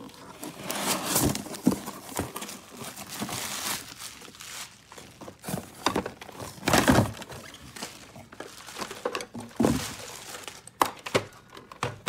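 A cardboard shipping box being opened by hand: irregular crinkling and rustling of cardboard flaps, tape and packing material, with a few thunks as a rotary telephone is lifted out of the box and set on the table.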